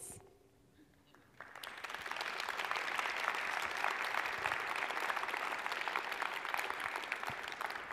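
Audience applauding. The clapping starts about a second and a half in, after a short hush, holds steady, and begins to die away near the end.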